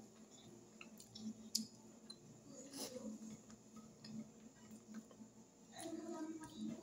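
Quiet eating sounds: scattered small clicks and ticks of lips and fingers picking food from a plate, with a brief low murmur near the end.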